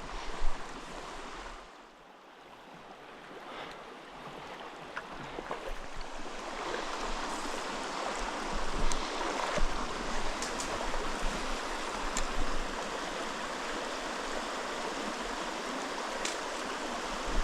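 Mountain stream running over rocks: a steady rush of water that grows louder over the first several seconds, then holds even, with a few faint clicks.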